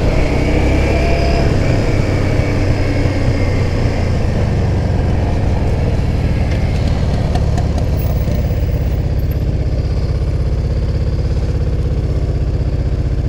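Yamaha Drag Star 400's V-twin engine running steadily while the motorcycle is ridden slowly through a turnaround.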